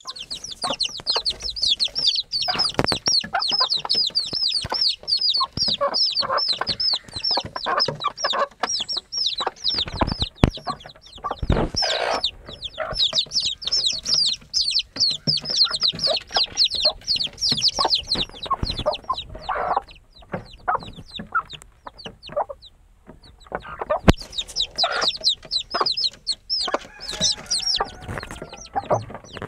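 A brood of chicks peeping continuously in rapid, high-pitched cheeps, with a hen clucking lower underneath. The peeping thins out for a few seconds about two-thirds of the way through and picks up again near the end.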